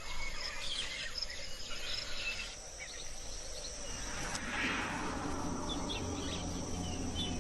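Tropical rainforest ambience: a steady high-pitched insect drone with scattered short bird chirps, and a soft swell of hiss about four to five seconds in.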